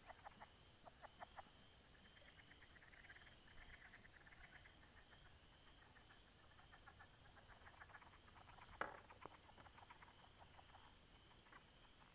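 Faint chorus of frogs calling, many rapid clicking trills overlapping. A brief louder noise about nine seconds in.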